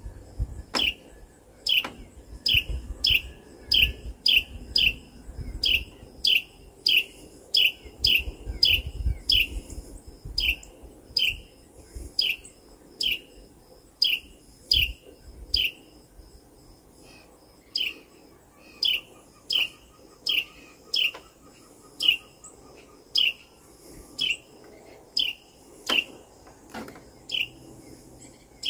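A wren giving a long series of sharp, downward-slurred chip calls, about one and a half a second, with a short pause about halfway through. A low rumble sits under the first half.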